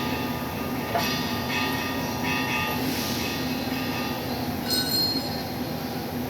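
A steady machinery drone with a low hum, broken by short high metallic squeals and clanks about a second in and again near five seconds.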